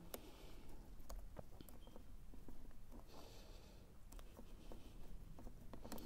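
Quiet handling of wiring at a plastic switch back box: scattered faint clicks and rustles of cable and small plastic connector blocks being moved by hand, with two soft breaths.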